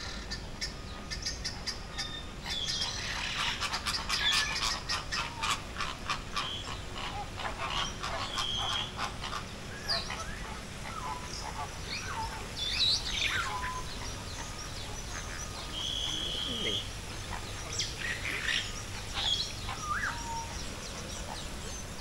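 Several birds calling: a fast run of short chattering calls through the first half, then scattered chirps and short whistles, including one steady whistled note about two-thirds of the way through.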